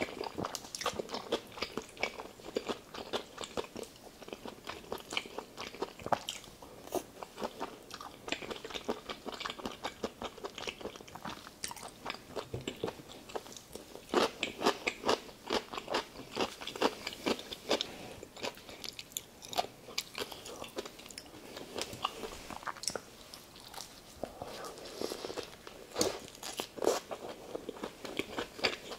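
Close-miked eating sounds: steady wet chewing of bolognese pasta with many small mouth clicks, then bites into a homemade cheeseburger near the end.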